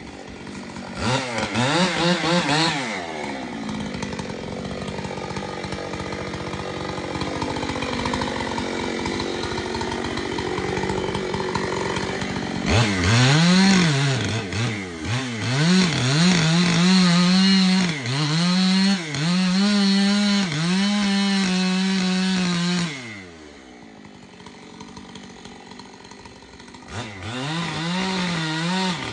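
Two-stroke chainsaw cutting into a large tulip poplar trunk during felling: it revs up about a second in, runs lower and rougher under load in the cut, then revs high with repeated throttle dips and rises. It drops back to idle for a few seconds before revving again near the end.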